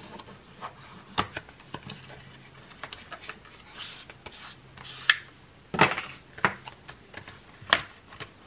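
Cardboard product boxes being handled: a scattered series of taps and knocks, with a few brief rubbing slides as a box is turned and moved about.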